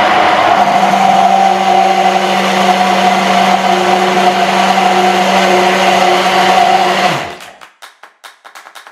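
Immersion hand blender running steadily in a tall beaker of soy milk and oil, emulsifying it into thick vegan mayonnaise. The motor cuts off about seven seconds in, followed by a few faint clicks.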